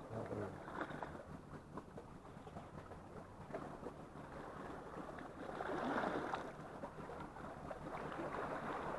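Sea water washing on the shore, with a louder wash about six seconds in and scattered faint ticks.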